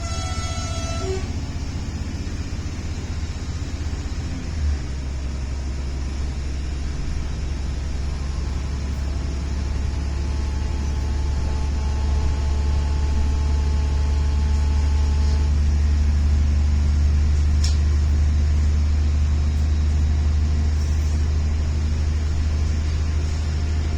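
Passenger train running, heard inside the carriage: a steady low rumble that grows louder about ten seconds in. A short tone sounds at the very start, and a single knock comes about five seconds in.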